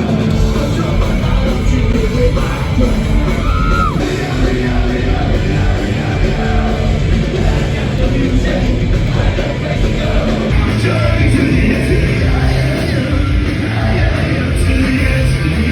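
Punk rock band playing live at a concert, loud and continuous, with shouted vocals over the band.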